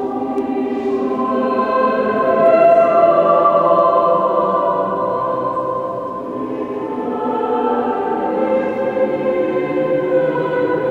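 Choir singing slow, held chords that change every second or two.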